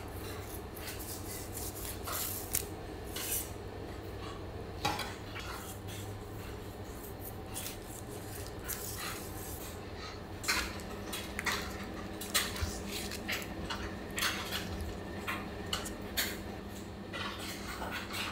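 Kitchen knife slicing through a baked apple cake: irregular short crunches and scrapes as the blade cuts the crust and meets the parchment paper and wooden board, coming more often about halfway through, over a low steady hum.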